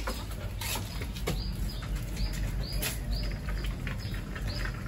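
A short, high chirp repeating about twice a second, starting about a second and a half in, over a steady low rumble, with a few sharp clicks in the first part.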